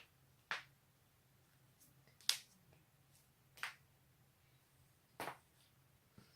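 A person cracking their own joints: about five separate sharp pops a second or more apart, the loudest about two seconds in.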